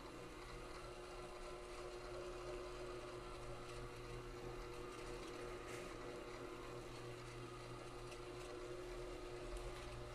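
Rotary floor buffer running steadily, its 60-grit sanding screen abrading a cured epoxy floor to knock down bubbles: an even motor hum with no break.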